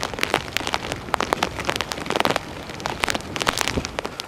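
Heavy hurricane rain falling, with many sharp drop hits close to the microphone over a steady hiss.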